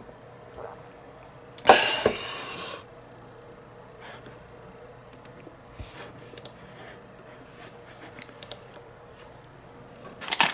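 Small handling noises at a table: a sharp knock near two seconds in, followed by about a second of rustling, then scattered faint clicks and rubs over a steady low hum.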